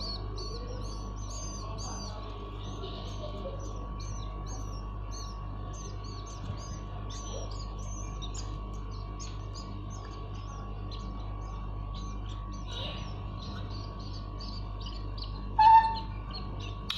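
Common iora (cipoh) chicks chirping over and over in quick short high notes, as nestlings do when begging to be fed, with one louder, lower squeak near the end. A steady electrical hum runs underneath.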